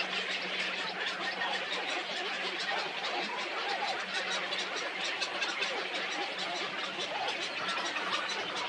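Dense chorus of many birds calling at once, a constant chattering din, over a steady low hum.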